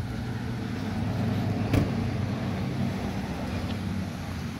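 Pickup truck's engine idling steadily with a low, even hum, and one sharp knock a little under two seconds in.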